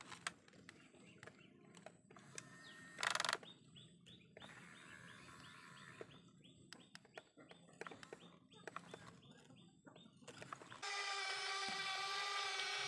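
Birds chirping faintly outdoors with small clicks and one brief loud rustle about three seconds in. Near the end a steady electric whir of the remote-controlled toy excavator's motors starts suddenly and is the loudest sound.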